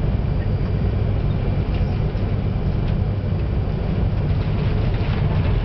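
Tsubasa shinkansen running at speed, heard from inside the passenger car: a steady low rumble with a few faint ticks.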